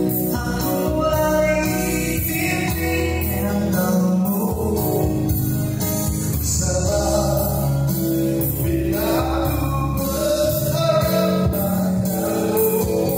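Live male vocals sung into microphones over amplified electronic keyboard accompaniment with a steady beat.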